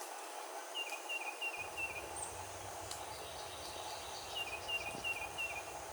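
Nature ambience: a songbird sings a short phrase of four quick two-note chirps about a second in, and repeats it about four and a half seconds in, over a steady hiss of insects.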